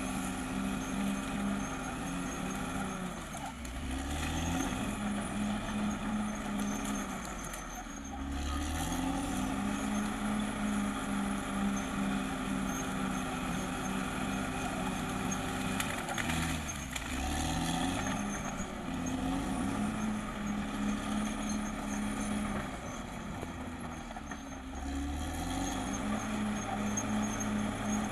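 Caterpillar D6R XL bulldozer's diesel engine running steadily. Four times, its pitch dips and then comes back up, as the engine pulls down and recovers under load.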